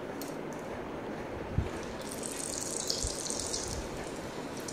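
Hot oil sizzling and bubbling as besan-coated paneer koftas are put in to deep-fry. There is a soft thump about a second and a half in, and the sizzle grows brighter and hissier about two seconds in as more koftas go into the oil.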